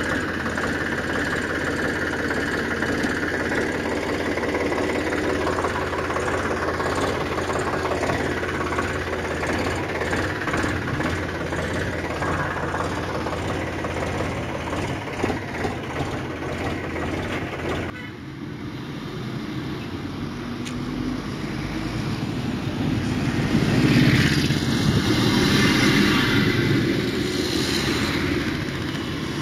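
Steady engine-like running sound, typical of a vehicle engine. It changes abruptly about two-thirds of the way through to a different running sound that grows louder near the end.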